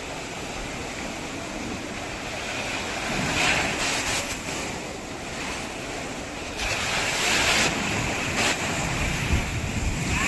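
Ocean surf washing onto a beach, with wind buffeting the microphone. The wash swells louder about three seconds in and again about seven seconds in.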